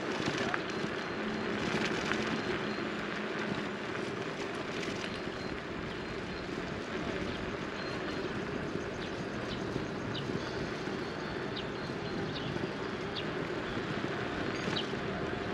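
Steady hum and road noise of a moving vehicle's engine, with a few short, high bird chirps in the last few seconds.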